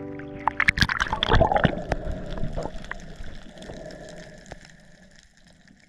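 Seawater splashing and sloshing close to the microphone at the sea surface, loudest about a second in and then fading out.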